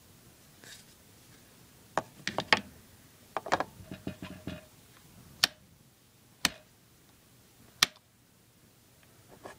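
Rotary range selector switch of a 1950s Weston ME-9E/U multimeter turned by hand, clicking through its detent positions: two quick runs of clicks, then three single sharp clicks about a second apart.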